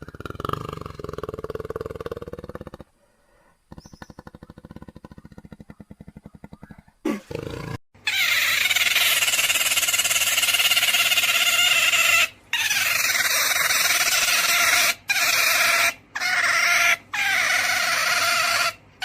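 A run of different animal sounds, one after another. It ends with a long, loud, steady sound broken by four short gaps.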